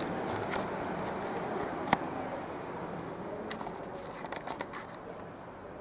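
Indoor room ambience with scattered light clicks and one sharp knock about two seconds in.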